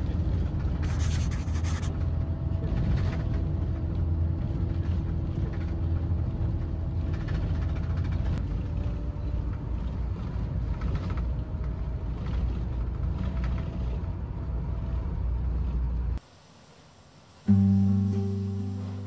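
Steady low engine and road rumble inside a moving minibus. About sixteen seconds in it cuts out, and a second later acoustic guitar music starts.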